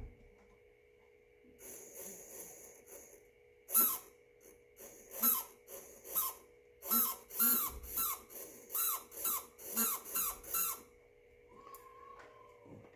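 Small electric RC motor running in water on a waterproofed ESC: a steady electrical whine, with about ten short, sharp bursts as the throttle is blipped, the first a couple of seconds in and the last near the end.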